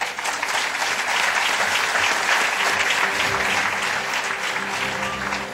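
Audience applauding, a dense clapping that sets in at once, holds, and tapers off near the end.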